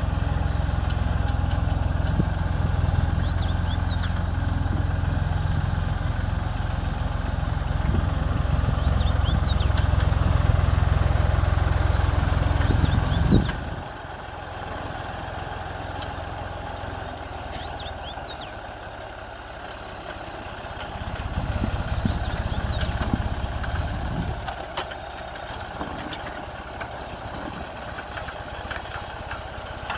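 Tractor diesel engine running steadily under load as it drags a trenching blade through the soil. The sound drops abruptly and becomes much quieter about a third of the way through, then swells briefly again later on.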